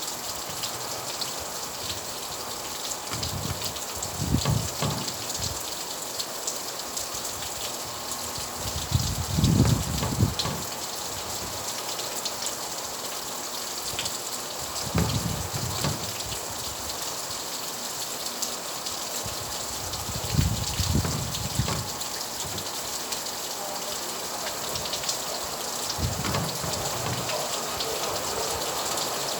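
Steady rainfall hissing, with brief low rumbles every five or six seconds.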